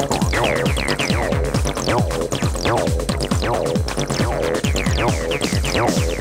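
Acid techno played from vinyl on DJ turntables: a steady four-to-the-floor kick under a repeating acid synth line whose notes fall sharply in pitch.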